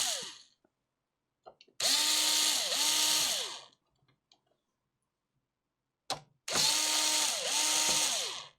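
A small handheld power tool motor run in two short bursts. Each burst is a whirring hiss that spins up, dips once in the middle and runs up again before stopping.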